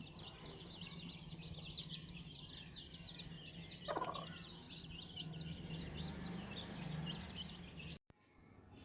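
A brood of chicks peeping continuously in quick, high cheeps, with a single lower call from the hen about four seconds in. The sound cuts off abruptly near the end.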